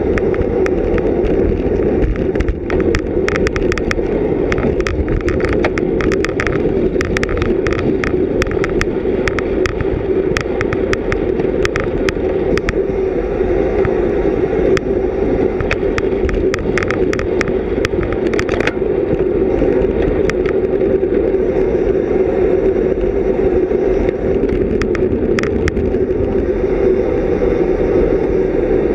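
Steady rush of wind and road noise at a racing cyclist's GoPro Hero 3+ at speed, with scattered sharp clicks and ticks from the bicycle through the first two-thirds and once more near the end.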